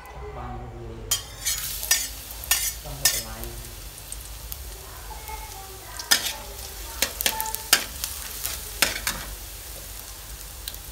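Minced garlic sizzling in hot oil in a steel wok, starting about a second in. A metal spatula scrapes and clinks against the wok in short strokes as the garlic is stirred.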